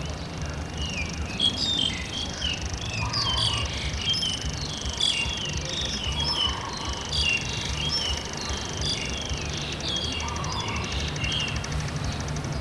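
Small birds chirping busily throughout, with a lower, softer call repeating about every three seconds, over a steady low rumble.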